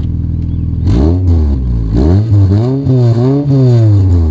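1998 Honda Civic engine idling, then revved in several quick throttle blips, the pitch rising and falling with each, before dropping back toward idle near the end; heard at the exhaust tailpipe.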